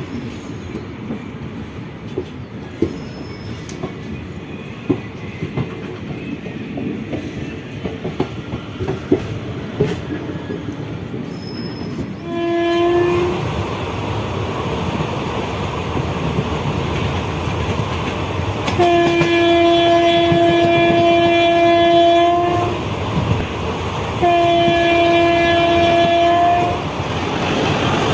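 Indian Railways passenger train rolling, heard from inside the moving coach: a steady rumble with wheels clicking over rail joints. About twelve seconds in, a locomotive horn sounds three times: a short blast, then a long blast of about four seconds, then one of about two and a half seconds.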